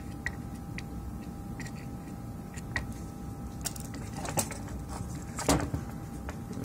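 Soldering iron and fingers working on a switch-mode power-supply circuit board during desoldering: scattered light clicks and scrapes, with a louder clatter about five and a half seconds in, over a steady low hum.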